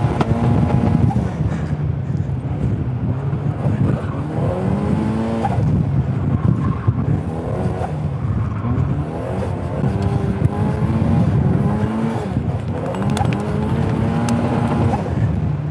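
Turbocharged 1.8-litre Mazda BP four-cylinder engine of an Exocet track car, heard on board at speed. Its revs climb and fall back about five times as it accelerates, lifts and shifts.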